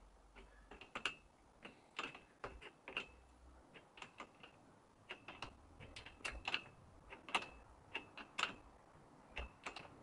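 Faint, irregular metallic clicks and taps, a few a second, some with a brief ring, as a bicycle seat post clamp is tightened with a hand tool.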